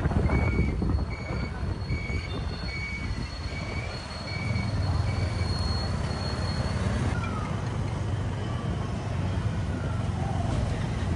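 Riding a motor scooter in traffic: a continuous low engine and road rumble, with a high electronic beep repeating about twice a second that stops about halfway through.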